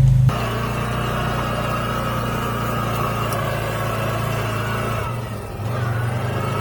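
Steady low mechanical hum of a running engine, dipping briefly about five seconds in.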